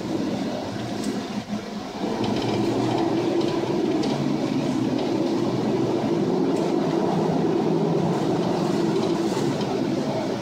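Steady low rumble aboard a chemical tanker in a storm: engine, wind and heavy seas blended together, heard from behind the bridge windows. The level dips briefly about a second and a half in.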